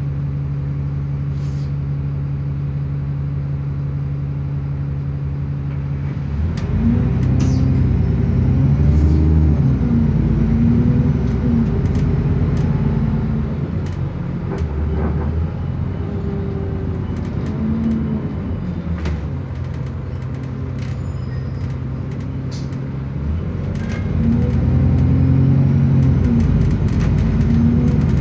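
Bus engine heard from inside the saloon: idling steadily, then about six seconds in it pulls away, the engine note rising and falling as it picks up speed. It eases off through the middle and accelerates again near the end.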